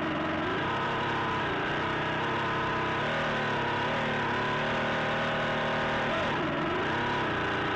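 An electric RC speedboat's motor whining as the boat runs across the water, picked up from a camera on its deck. The pitch dips and rises several times as the speed changes.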